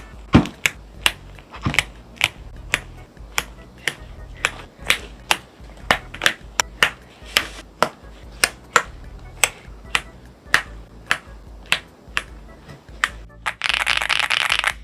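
Keystrokes on a Leobog Hi75 aluminum gasket-mount keyboard with unlubed Akko V3 Cream Blue Pro linear switches: separate sharp key presses about two to three a second, then a fast flurry of keys near the end. Background music plays underneath.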